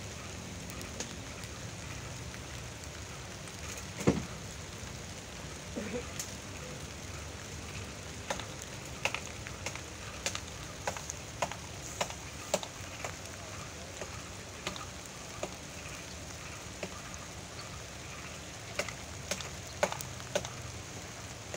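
Light rain falling steadily, with scattered drops tapping irregularly close by.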